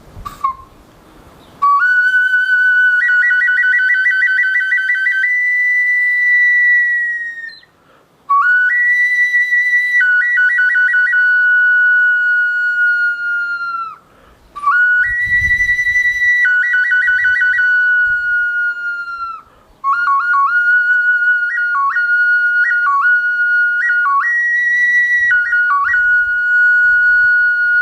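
Matlatzinca nipipí whistle played in four phrases with short breaks between them, moving between two high notes a short step apart, with quick trills that flutter between the two.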